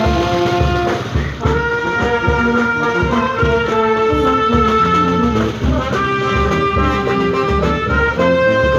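Brass band music: horns holding sustained notes of a slow melody over a steady bass-drum beat.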